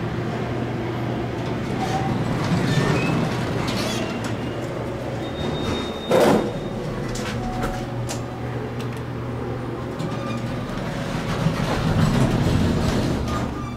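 Schindler elevator doors sliding open, then a knock about six seconds in, over a steady hum of motors.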